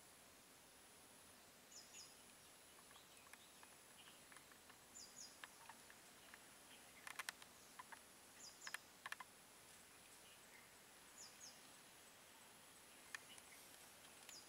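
Near silence: quiet outdoor ambience in which a bird gives a short doubled high chirp about every three seconds, over a faint steady high whine and a few scattered faint ticks.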